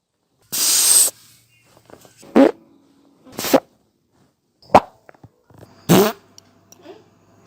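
Human farts, five separate ones with pauses between them. The first lasts about half a second and is airy and hissing; the other four are short and pitched.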